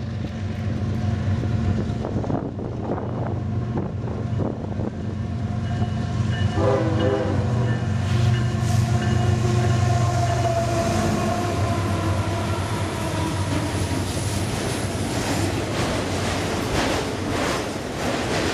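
Union Pacific diesel freight locomotives drawing near and passing with a steady low engine drone, while a locomotive horn sounds from about six seconds in for several seconds. Near the end, the wheels of autorack freight cars clatter by on the rails.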